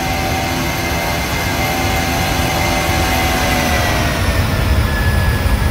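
Jet airliner engines at high thrust: a loud, steady rumble with a whine over it that drops slightly in pitch about three to four seconds in.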